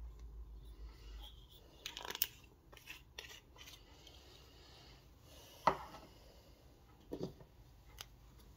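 Handling noise from small glitter vials around a metal muffin tin: scattered light clicks and knocks, with a cluster about two seconds in and the sharpest knock a little past the middle.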